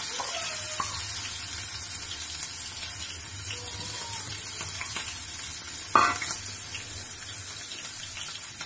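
Chopped ginger frying in hot oil in a kadhai: a steady crackling sizzle, with one sharp knock about six seconds in.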